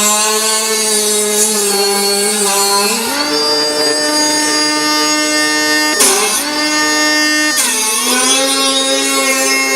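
Deprag pneumatic grinder running at high speed, a steady whine whose pitch drops when the tool bears on the moulded car part and glides back up as the load eases: the speed sagging and recovering under grinding load. There is a rise in pitch about three seconds in and drops about six and eight seconds in.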